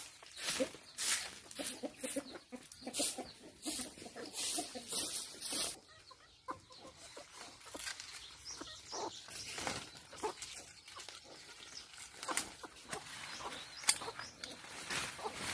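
Chicken clucking while a hoe scrapes and chops into dry soil in quick strokes, about two a second, for the first half. After that it is quieter, with rustling as leaves are handled and pulled.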